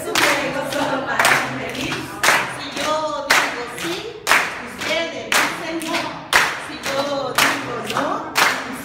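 A group of people singing a call-and-response camp song while clapping their hands in a steady rhythm, about one clap a second, often doubled.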